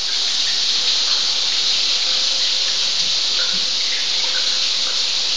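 Shower head spraying water steadily onto the floor of a tiled shower stall: an even hiss of running water.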